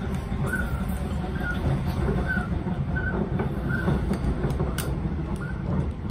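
Passenger train running along the track, heard from inside the carriage: a steady low rumble with short high squeaks coming back every half second to a second and a few faint clicks.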